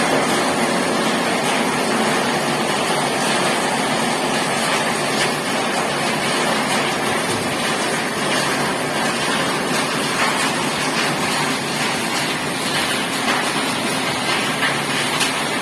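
Heavy, continuous rain: a loud, steady hiss with scattered drop ticks.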